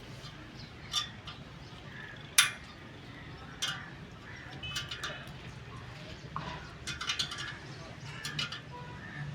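Scattered sharp metallic clinks and taps of tools on a spoked motorcycle wheel, the loudest about two and a half seconds in, over a steady low hum.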